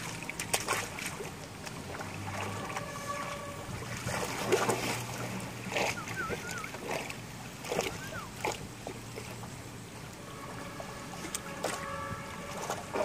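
Water splashing and sloshing as dogs wade and swim in shallow lake water, in irregular splashes over a steady low hum.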